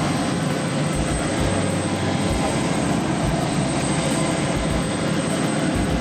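A steady engine drone with a rushing noise over it, unchanging, with no breaks or sudden sounds.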